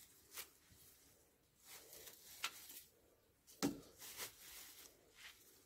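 Faint, scattered rustling of dry straw, with a soft knock about two-thirds of the way in, as the slaughtered goat is handled on its straw bed.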